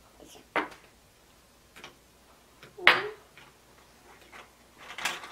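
Hard plastic toy food and toy dishes clicking and knocking against each other and the table: a few separate knocks, the loudest about three seconds in.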